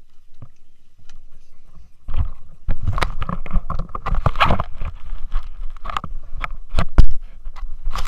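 Irregular knocks, rubs and scrapes of handling noise on a body-worn action camera as the wearer moves over rocks, starting about two seconds in, with a low rumble underneath.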